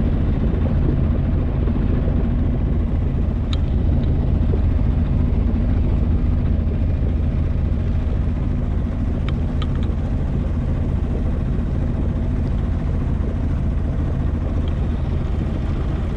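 Sailboat's inboard engine running steadily under way, a low even hum, with water rushing past the hull.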